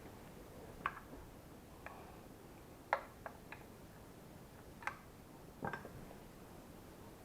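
A handful of scattered light clicks and taps over a faint steady hiss: parts of an LG vacuum cleaner being handled during disassembly.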